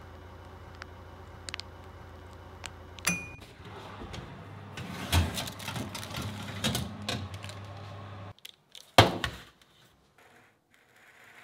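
Oven running with a steady low hum and a few sharp metallic clicks, the loudest about three seconds in. Then the oven door is opened and the metal roasting tray is slid out over the rack with clattering and scraping, which stops abruptly, and a loud clank about nine seconds in as the tray is set down on a wooden counter.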